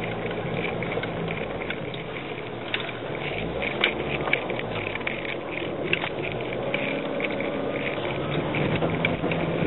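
Off-road SUV engine running steadily, heard from inside the cabin as it drives over a rough dirt track, with repeated knocks and rattles from the bumps.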